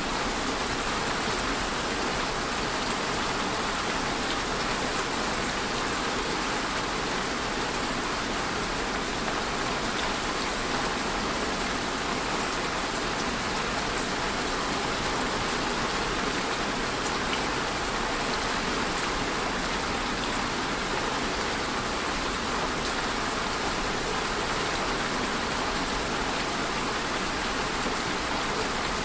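Steady rain falling, an even hiss of drops on surfaces, with fine drop ticks and no change in intensity.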